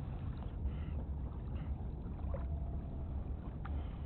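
Steady low outdoor rumble with a few faint, short rustles and clicks as hands handle a fishing hook and line over a plastic bag of groundbait.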